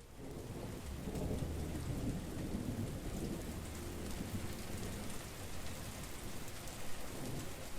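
Steady rain, with a low rumble of thunder through the first several seconds.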